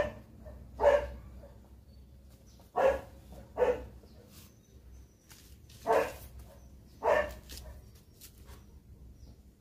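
A dog barking, six short barks in pairs about a second apart, with faint crackling of corn husks being stripped between them.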